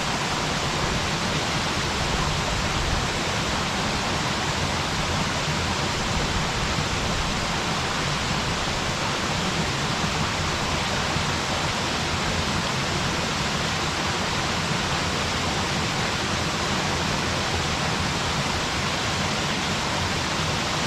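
Waterfall pouring steadily, a dense even rush of falling water.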